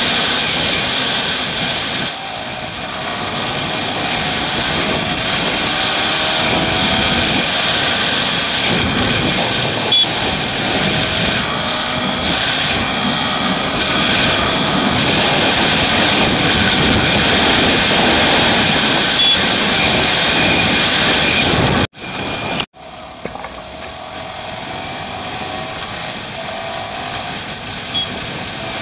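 Wind rushing over the camera microphone on a moving sport motorcycle, with the engine's note climbing again and again as it is revved through the gears. The sound cuts out for a moment about 22 seconds in.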